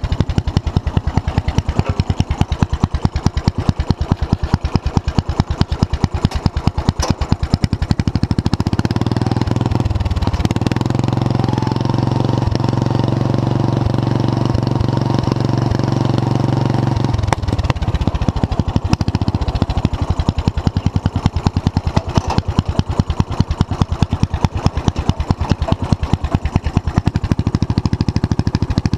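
Small engine of a Murray machine running through a newly built exhaust. It idles as a string of distinct, evenly spaced exhaust pulses, is revved up about ten seconds in and held at a steady higher pitch for about seven seconds, then drops back to the pulsing idle.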